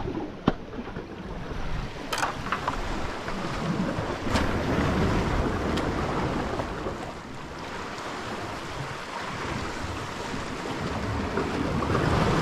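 Sea waves washing steadily, with wind on the microphone and a few short sharp clicks over the first six seconds.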